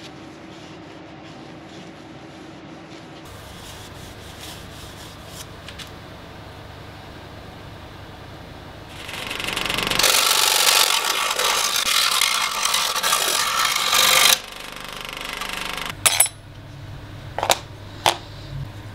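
A power saw cutting wood: after a faint steady hum, a loud cutting noise swells up, holds for about five seconds and stops abruptly. A few sharp clicks of wooden pieces follow near the end.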